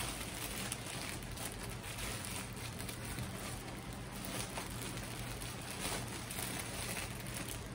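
Faint crinkling and rustling of a clear plastic basket bag as it is gathered and tied at the top, over a steady low hum.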